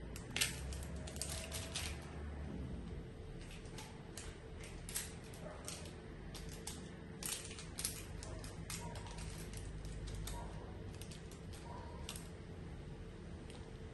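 Kitchen utensil work: a spatula and cookware give off a scattered run of light, irregular clicks and taps. A steady low hum runs underneath.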